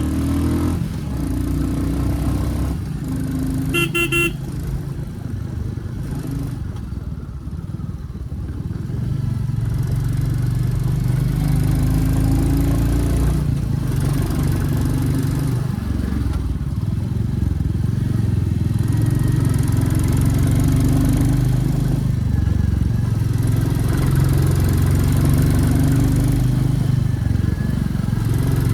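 Royal Enfield Classic 350's single-cylinder engine running, its note rising and falling with the throttle. A short horn toot sounds about four seconds in.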